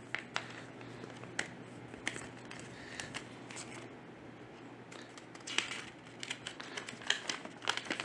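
Paper instruction sheet and clear plastic packaging bag rustling and crinkling as they are handled, in scattered crackles and small clicks that grow busier a few seconds in.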